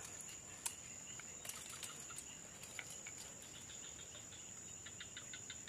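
Insects droning steadily at a high pitch, with a run of faint ticks partway through.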